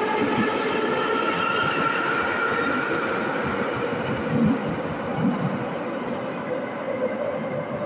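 Moscow Metro subway train pulling out of the station: its electric traction motors whine in steady tones over the rumble of wheels on rail, and the sound slowly fades as the train runs into the tunnel.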